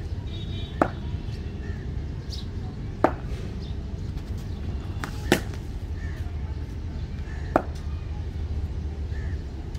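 Four sharp wooden knocks of a cricket bat, evenly spaced about two seconds apart, over a steady low rumble.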